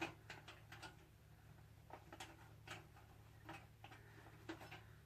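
Faint, irregular clicks and light taps from handling items inside an empty PC case, over a low steady hum.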